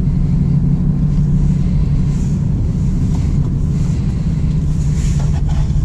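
Cabin drone of a BMW 316i E36 Compact's four-cylinder engine and road noise while driving at a steady pace. The engine note holds constant, with no revving or gear change.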